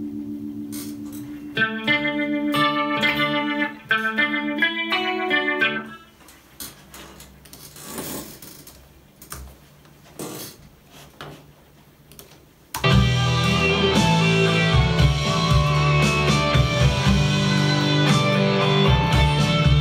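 Electric guitar through a rack effects processor, picking single notes and chords that ring and fade for about six seconds. A quiet stretch with a few faint mouse clicks follows. About thirteen seconds in, a loud backing track with piano and bass starts playing, with the electric guitar playing over it.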